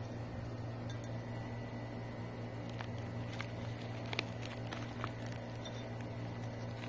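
A steady low hum, with a handful of small crinkles and clicks about halfway through as a hand pulls apart fried chicken in an aluminium foil tray lined with paper.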